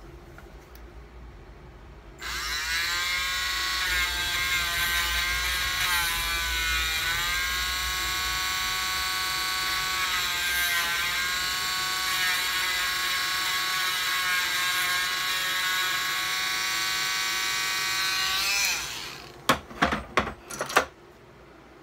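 Handheld rotary tool with a burr starting up abruptly and running with a high whine, its pitch dipping now and then as it cuts into green jewellery carving wax. It winds down with a falling whine near the end, followed by a few sharp clicks and knocks.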